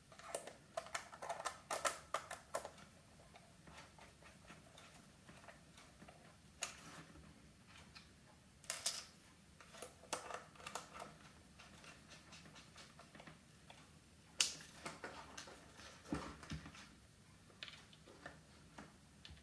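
Small screwdriver driving Torx T10 screws into the plastic housing of a power chair joystick controller: scattered clusters of light clicks, ticks and scrapes with quiet gaps between them.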